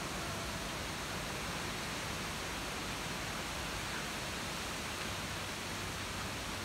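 Steady, even hiss of background noise with no distinct calls, footsteps or knocks standing out.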